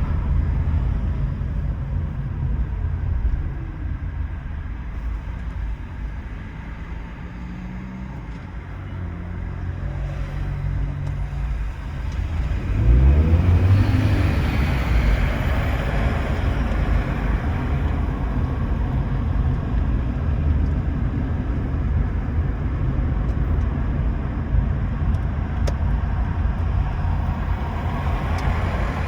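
Toyota Prius driving, steady tyre and road noise. The noise eases off for several seconds, then about halfway through a hum rises in pitch as the car picks up speed, and the noise stays louder and steady after that.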